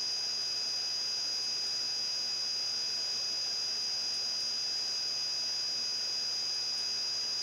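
Steady background hiss with a thin, high-pitched electronic whine: the noise floor of the recording, with no other sound.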